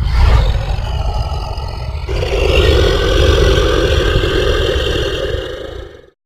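A deep, rumbling monster growl sound effect that starts abruptly, grows harsher about two seconds in, and cuts off suddenly near the end.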